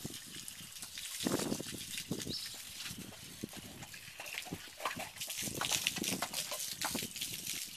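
Water from a garden hose spraying and splattering onto a horse's legs and the ground, with a louder, deeper rush a little over a second in.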